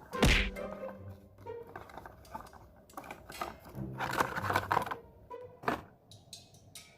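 Soft background music with a few clicks and knocks from a flexible phone stand being handled; the loudest knock comes just after the start.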